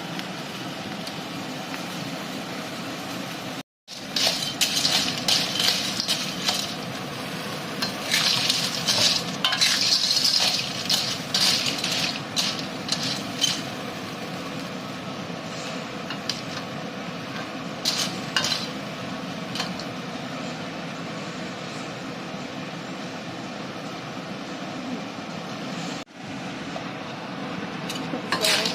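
Snails in their shells being stirred in a hot pan of soy sauce: a spatula scrapes and the shells clatter and clink against the metal over a steady sizzle. The stirring comes in irregular spells, and the sound cuts out briefly twice.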